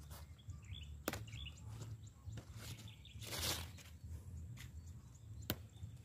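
Faint rustling of grapevine leaves handled by hand, with two sharp snaps, about a second in and near the end, as brittle leaves are broken off the vine.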